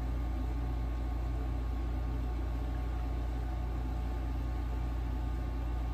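Steady low background hum with faint even room noise.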